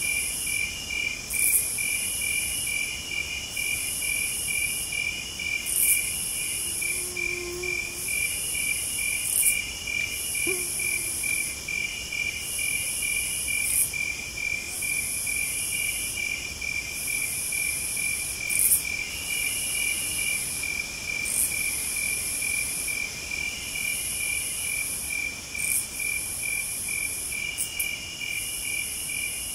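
Night insects chirping: a steady, fast-pulsing trill, with a higher buzz that switches on and off about every second and a half.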